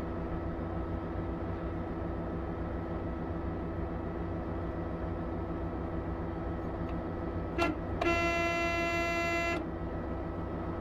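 Steady drone of a running vehicle engine. About three quarters of the way through, a vehicle horn gives a short toot, then sounds one blast of about a second and a half.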